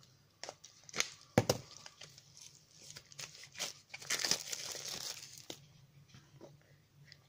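Wrapping being torn and peeled off a new ink pad, crinkling and crackling, loudest in the middle, with two sharp clicks about a second in.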